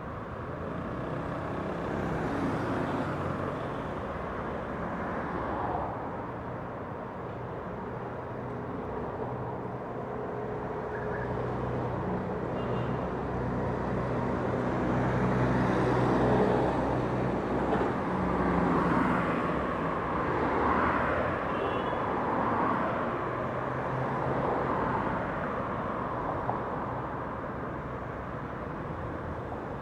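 Light street traffic: cars and buses passing one after another, each swelling and fading over a steady background of traffic noise, with a low engine hum underneath through the middle and the loudest pass about halfway through.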